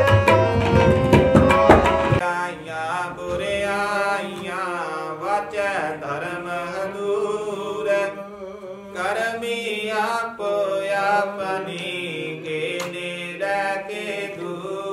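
Sikh kirtan: harmonium and tabla play together until about two seconds in, when the tabla stops. After that a man's voice chants in long, wavering melodic phrases over a steady low note.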